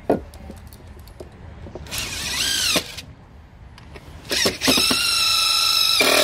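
Cordless drill driving screws into wood: a short run about two seconds in whose pitch rises and then falls, then a longer, steady run near the end that cuts off suddenly.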